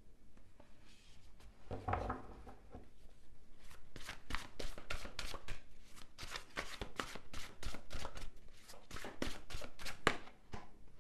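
A deck of tarot cards being shuffled by hand: a rapid, irregular run of light clicks and slaps, several a second, after a brief rustle about two seconds in.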